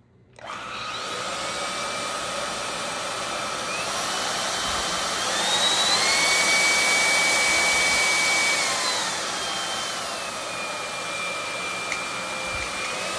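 Cordless stick vacuum's brushless motor switching on and running with a high whine. The motor speeds up about five seconds in, holds higher, then drops back to a lower speed a few seconds later.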